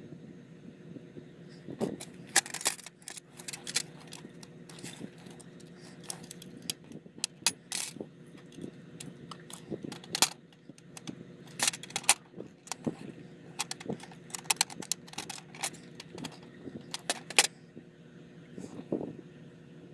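Irregular sharp clicks and light metallic clinks from small tools and parts being handled during a hands-on repair, over a steady low hum.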